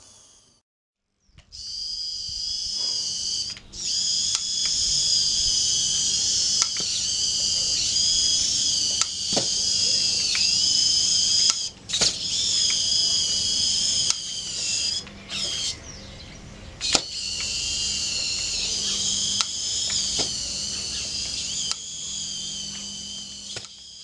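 Small electric drive motors of a tracked robot whining at a high pitch that wavers up and down with the load, broken by sudden stops and a few sharp clicks.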